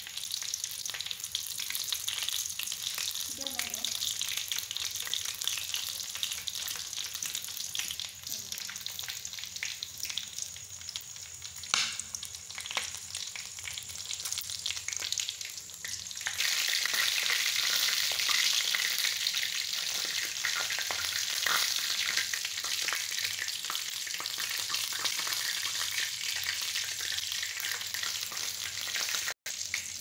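Whole mice frying in oil in a steel wok, a steady sizzle full of small crackles and pops; the sizzle grows louder about halfway through.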